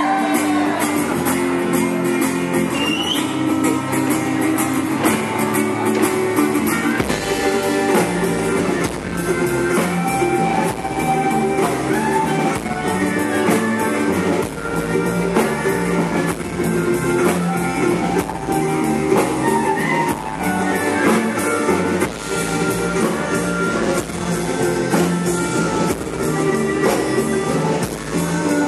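Live folk band playing: acoustic guitar, electric guitar and double bass over a steady beat.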